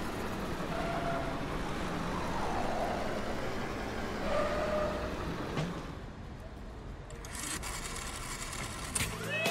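Cartoon vehicle engine sound effect as a small ambulance drives, a steady low rumble with a few faint squeaky tones. It dies down about six seconds in; near the end come a few clicks and the start of a rising siren.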